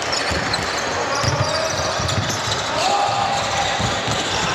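Basketball bouncing on the court during play: a run of irregular low thumps.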